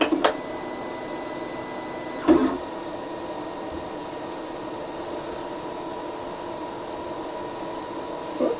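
Geeetech A20 3D printer running its change-filament routine, the extruder pushing filament out: a steady mechanical hum with a whine, whose higher tones stop about two seconds in. A few short clicks come at the start and another brief sound about two seconds in.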